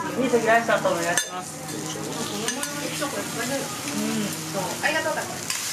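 Food sizzling on a teppanyaki griddle, a steady hiss, with voices talking under it and a sharp clack a little over a second in.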